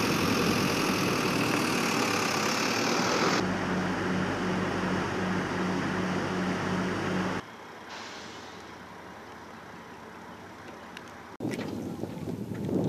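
Motor vehicle engine and road noise with a steady low hum, cut by edits: the sound drops suddenly to a quieter stretch about halfway through. In the last second or so, wind buffets the microphone.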